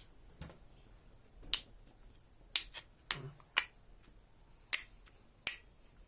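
Sharp clicks and clinks of the parts of a dismantled car alarm siren being handled and set down, about seven separate knocks, several with a brief metallic ring.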